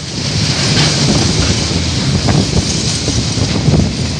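KiwiRail coal train's container wagons rolling past close by: a steady rumble of steel wheels on the rail, with frequent clacks as the wheels cross the track.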